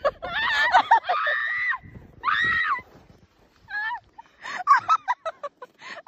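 A woman screaming: two long high-pitched shrieks in the first three seconds, then a string of shorter yelps and cries.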